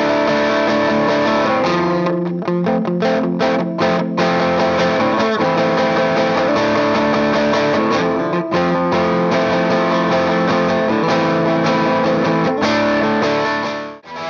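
Bacchus Universe Series T-style electric guitar played with overdrive on the middle pickup setting: sustained ringing chords, with a run of short choppy strums about two to four seconds in. The playing breaks off briefly just before the end.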